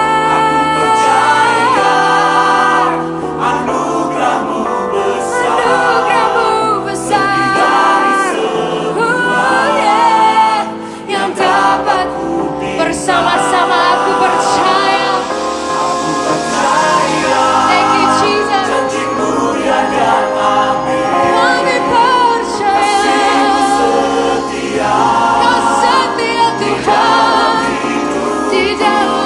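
Christian worship song sung by a choir with instrumental accompaniment, the voices holding and gliding between notes over a steady bass line.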